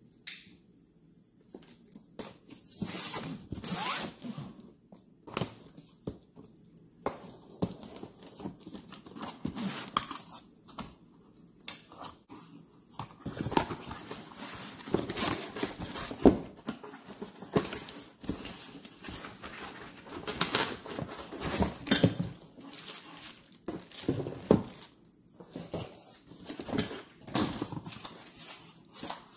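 A knife slicing through the packing tape on a cardboard box in short scraping strokes, followed by cardboard flaps and inserts being pulled open and handled, with plastic packaging rustling and light knocks against the box.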